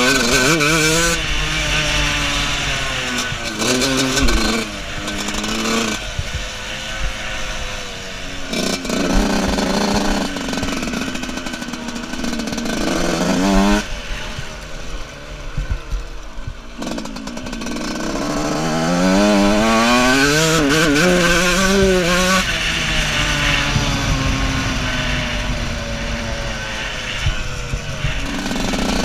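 125cc two-stroke motocross bike engine revving hard, its pitch climbing and dropping again and again as the rider goes on and off the throttle around the track, heard from a helmet-mounted camera. It falls away for a couple of seconds about halfway through, then winds up again.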